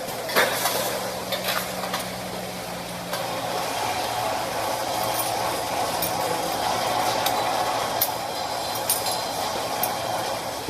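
Robotic arc welder laying a weld: the steady crackling noise of the welding arc, with a low steady hum underneath and scattered sharp clicks.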